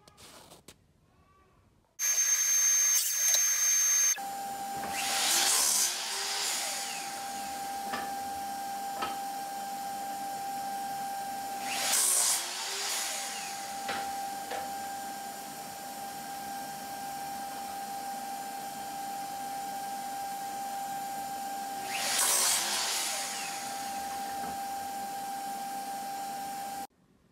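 A sliding compound miter saw and a shop-vacuum-style dust extractor run together. The extractor's motor gives a steady whine throughout, and the saw blade cuts three times in louder noisy surges of one to two seconds each. A brief, louder high-pitched whine comes about two seconds in, before the steady running starts.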